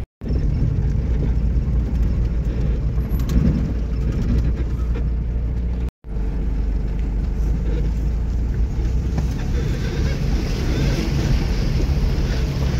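Steady low rumble of a motor vehicle on the move, with wind on the microphone; the sound cuts out briefly at the start and again about six seconds in.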